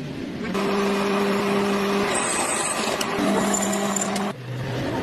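A workshop machine or power tool running with a steady hum over a hiss. It starts about half a second in and cuts off after about four seconds.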